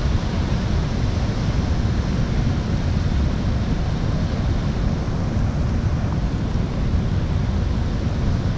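Wind buffeting the microphone outdoors: a steady low rumble without pitch or rhythm.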